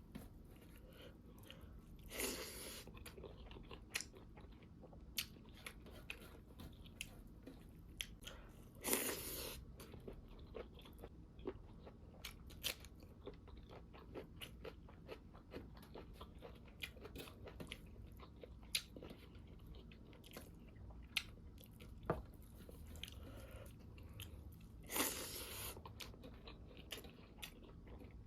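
Close-up eating sounds: chewing and crunching on pork with crunchy cartilage bones, with many small wet clicks of the mouth and three louder, longer crunches spread through.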